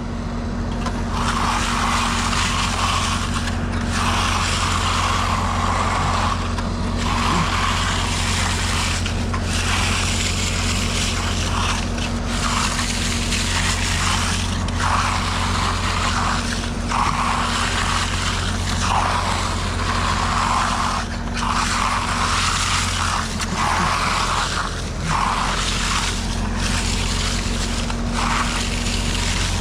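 Heavy diesel engine of a concrete truck running steadily, with a loud rushing hiss that breaks off for a moment about every two seconds.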